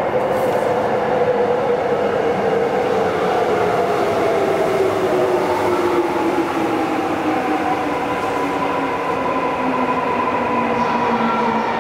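A subway train running behind platform screen doors. Its motor whine falls steadily in pitch as the train slows, with the steady rumble of wheels on rail, and a higher tone climbs over the second half.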